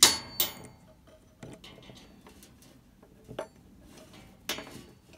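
A few sharp clicks and knocks of small parts being handled and pushed into place while a new igniter is fitted into an RV water heater. The loudest come right at the start and again near the end, with quieter fiddling between.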